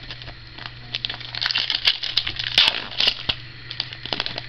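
Foil wrapper of a 2011 Contenders football card pack being torn open and crinkled by hand: a dense run of crackles, loudest in the middle.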